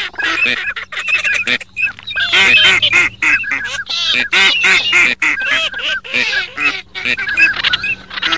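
Many ducks calling rapidly over one another: a dense chatter of short, repeated calls, with brief lulls.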